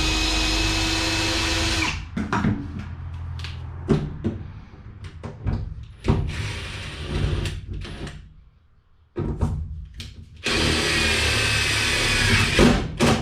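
Power drill driving self-tapping screws into sheet metal: one steady run of about two seconds, then scattered clicks and knocks, then a second run of about two and a half seconds near the end.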